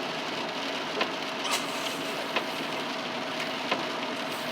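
Steady road and rain noise inside a car's cabin while driving in heavy rain, with a few faint scattered ticks.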